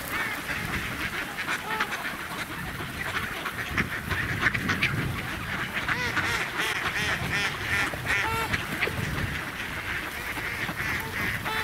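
A large flock of waterfowl calling continuously: many short calls that rise and fall, overlapping one another, over a low uneven rumble.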